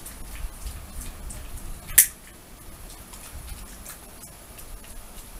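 A lighter struck once with a sharp click about two seconds in, to relight a tobacco pipe, among faint small ticks.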